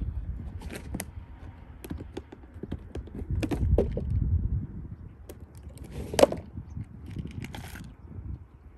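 Fishing tackle being handled while a new hook is rigged: scattered small clicks and rattles, with one sharper click about six seconds in. A low rumble on the microphone swells around the middle.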